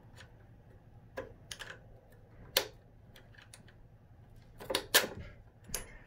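Scattered light clicks and knocks of a plastic-and-metal handlebar quick clamp being handled and slid onto a tricycle's fork steerer tube, the sharpest about two and a half seconds in and around five seconds in.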